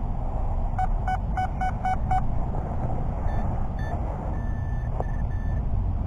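Electronic beeping from metal-detecting gear, a Nokta Makro Anfibio Multi detector and a handheld pinpointer, locating a target: six quick identical beeps about four a second. In the second half come a few higher beeps and a broken steady tone. A low steady rumble runs underneath.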